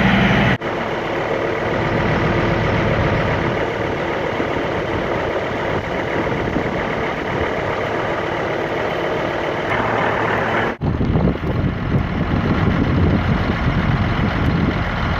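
John Deere 4250 tractor and the pull-type forage harvester it pulls running steadily. The sound cuts off abruptly and resumes twice, about half a second in and about eleven seconds in.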